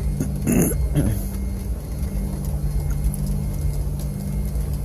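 Jet airliner cabin noise while taxiing: a steady low rumble with a constant hum. Two brief rustling knocks come about half a second and a second in.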